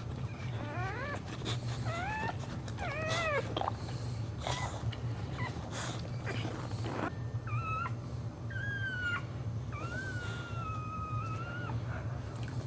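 A boxer dog in labour whining while she pushes out a puppy: a run of short, rising-and-falling whines, then from about seven seconds in a few longer, high whines held steady. There are noisy puffs between the whines, over a steady low hum.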